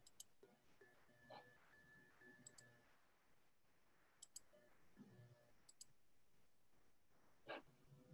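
Near silence: faint room tone with a sharp double click every second or two, and a slightly louder single knock near the end.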